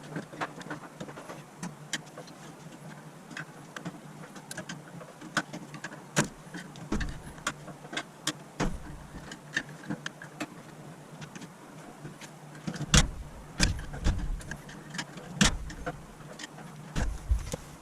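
Irregular small metal clicks and taps of a tool working at the C-clip retaining washer on a dryer's idler pulley shaft, with a few louder knocks in the second half.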